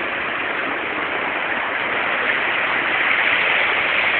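Shallow rocky river rushing steadily, growing a little louder near the end.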